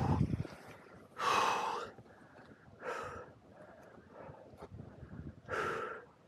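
A mountain biker's heavy breathing after riding: three loud exhales, about a second and a half apart, close to a chest-worn camera microphone.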